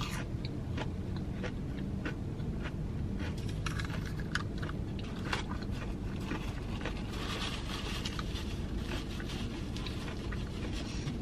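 A person chewing a mouthful of crunchy fried, breaded food, with scattered small crunches throughout, over a low steady hum.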